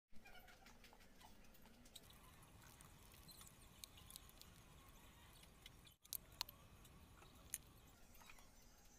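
Near silence with faint, scattered light clicks and taps of plastic paint bottles being handled as paint is squeezed out in dots onto paper. The sound drops out completely for an instant about six seconds in, and a few sharper clicks follow.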